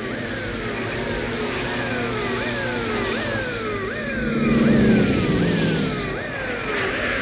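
Police siren wailing in a quick rise and slower fall, repeated about every three-quarters of a second, over the steady drone of aircraft engines. A louder rushing swell comes about four to five seconds in.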